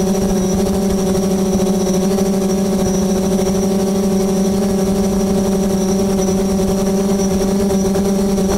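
Multirotor drone's propellers and motors humming steadily while it hovers, a constant low drone with overtones and a thin high whine above it.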